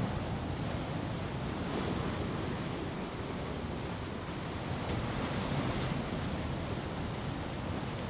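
Steady rushing of water, an even wash of noise with slight swells a couple of seconds in and again a little past the middle.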